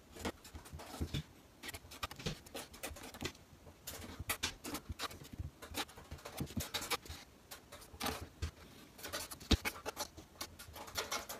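Pen writing on sticky notes: quick, irregular scratching strokes with light paper handling, and one sharp tap about nine and a half seconds in.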